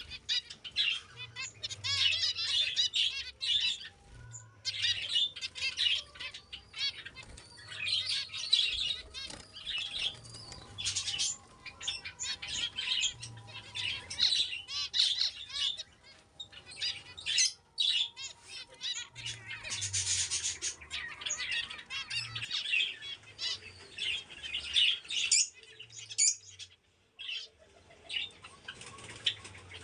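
A flock of small pet parrots chirping and chattering continuously in dense, overlapping high calls.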